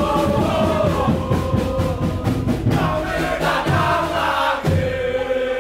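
Crowd of football supporters singing a chant together in unison over a steady beat.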